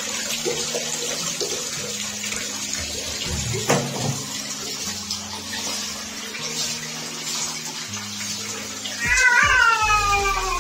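Tap water running steadily during a cat's bath, with a single knock about three and a half seconds in. Near the end the cat lets out one long, falling meow.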